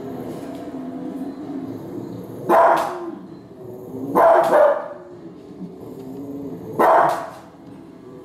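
Cavalier King Charles Spaniel barking at grizzly bears on the television: a single bark about two and a half seconds in, a quick double bark around four seconds, and another bark near seven seconds. Between the barks the TV's wildlife documentary soundtrack plays underneath.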